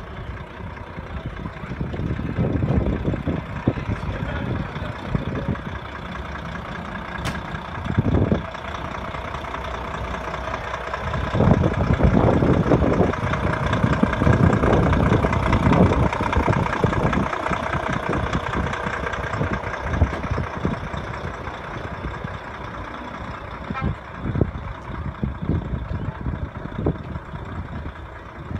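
Large truck engines running, mostly idling, getting louder for several seconds about halfway through.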